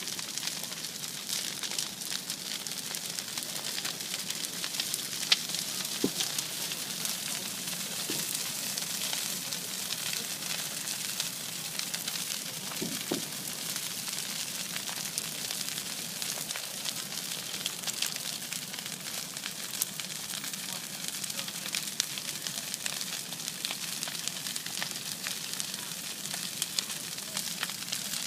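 Bonfire burning: a steady hiss with frequent small crackles and pops.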